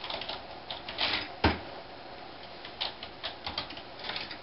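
Typing on a desktop computer keyboard: irregular key clicks in quick bunches, with one louder clack about one and a half seconds in.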